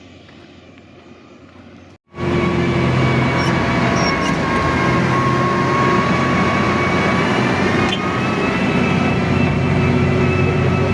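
A motor vehicle's engine running steadily, loud and close. It cuts in abruptly about two seconds in, after a faint steady background.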